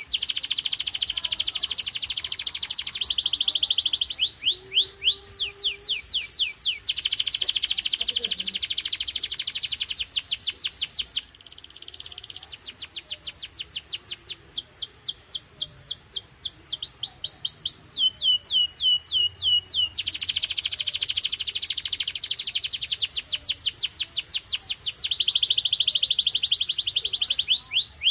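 Domestic canary singing a long, continuous song: fast, high trills alternate with runs of quick, repeated falling chirps, several a second, with a short softer dip near the middle.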